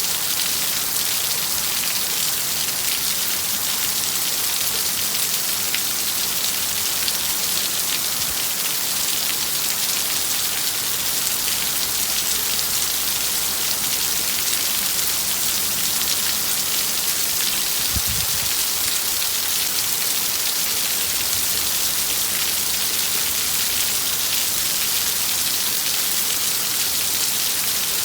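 Heavy rain falling steadily, an even dense hiss of drops with no let-up.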